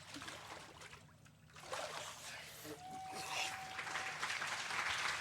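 Water splashing and sloshing in a baptismal tank as a person is immersed and brought back up, then applause starts about a second and a half in and builds, with a brief cheer in the middle.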